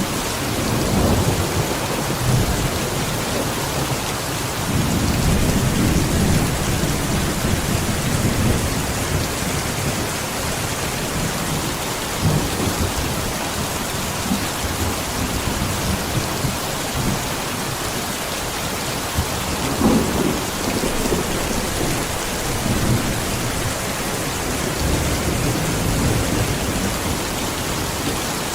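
Heavy rain falling steadily with a dense hiss, with low rumbles of thunder swelling up several times, the longest a few seconds in.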